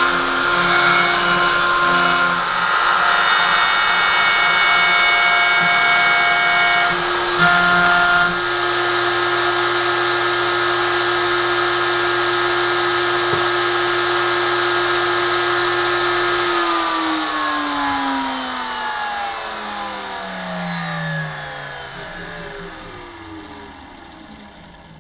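CNC router running: the wood router's motor whines steadily while the stepper motors hum and change pitch as the gantry moves, in the first several seconds. About 16 seconds in the router is switched off and spins down, its pitch falling as it fades away.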